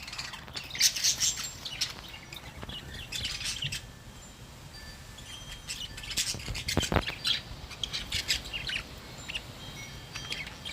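Budgerigars chirping and chattering in clusters of short high calls, over a low rumble of wind on the microphone.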